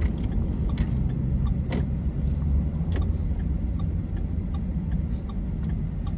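Steady low rumble of a car heard from inside the cabin while driving, with a few faint clicks.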